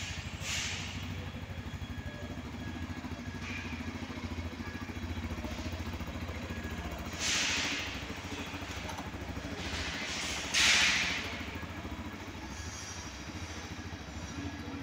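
Power Tekken 250X motorcycle's 250 cc single-cylinder engine idling with a steady low pulse. Two short, louder rushes of noise break in about seven and ten and a half seconds in, the second the louder.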